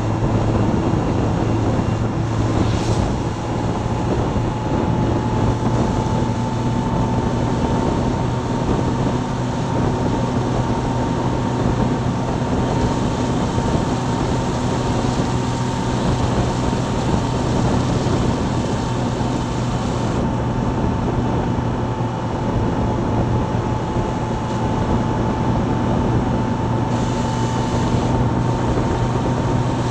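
Motorcycle engine running steadily at cruising speed, its note stepping up slightly about three seconds in as it picks up speed, under a constant rush of wind and tyre hiss on the wet road.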